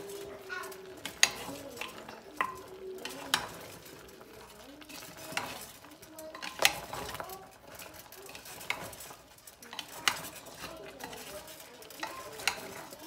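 Metal spoon stirring spiced goat meat in a pressure cooker, scraping through the meat and knocking sharply against the pot's sides every second or two, with the meat sizzling as it fries.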